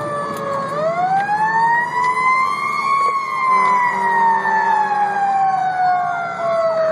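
Fire engine siren wailing, heard from inside the cab: its pitch falls, climbs again starting about a second in to a peak around three seconds, then slowly falls away.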